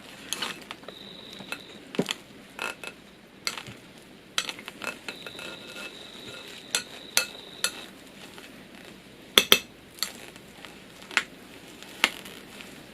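Spoon clinking and scraping against a bowl in irregular taps as partly cooked sticky rice is turned over, with a sharper pair of clinks about nine seconds in.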